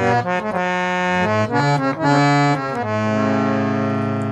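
Hand-pumped two-reed-bank harmonium (bass and male reeds) played: a short run of changing notes, then a long held note from about three seconds in.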